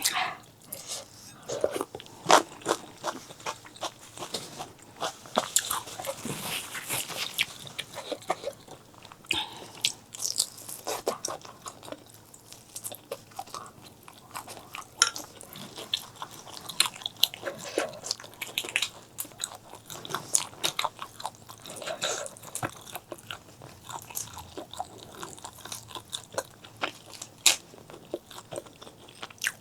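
Close-miked eating sounds: a person chewing and biting, with many irregular wet clicks and crunches.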